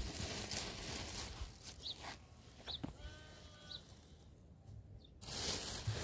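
A sheep or goat-type farm animal bleats once, a short pitched call about three seconds in, with a few brief high chirps around it. Stretches of rustling noise come at the start and again, loudest, near the end.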